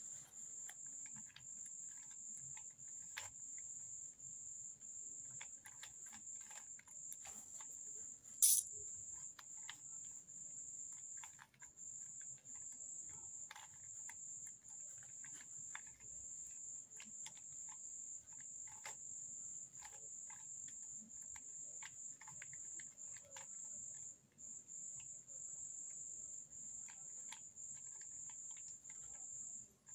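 Faint plastic clicks of a 3x3 puzzle cube being twisted in the hands, with one sharper click about eight and a half seconds in. A steady high-pitched trill runs underneath.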